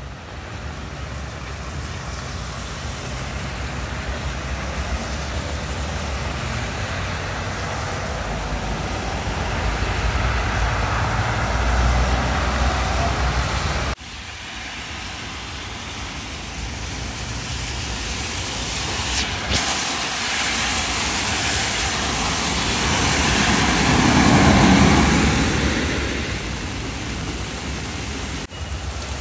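Road traffic on rain-soaked streets: buses and cars driving past with tyre hiss on wet asphalt and engine rumble. One vehicle swells to the loudest point about three-quarters of the way through as it passes close, then fades.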